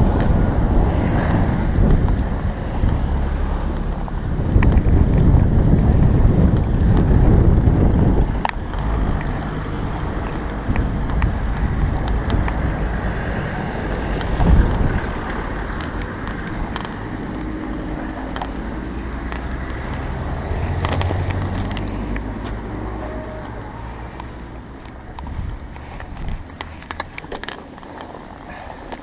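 Wind buffeting a GoPro Hero 11's microphone during a bicycle ride through fresh snow: a dense low rumble that swells and eases, strongest in the first eight seconds and fading toward the end, with scattered sharp clicks.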